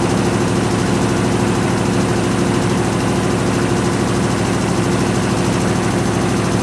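Washing machine spinning fast: a steady motor and drum hum with a rapid, even pulsing as the cabinet vibrates, on newly repaired dampers that the owner rates only fair, the side panel still shaking.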